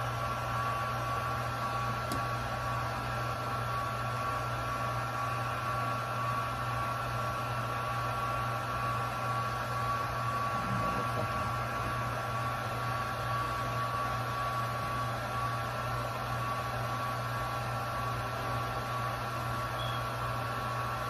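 A small electric blower motor running steadily: a constant whir with a low hum and a couple of faint, steady high whines.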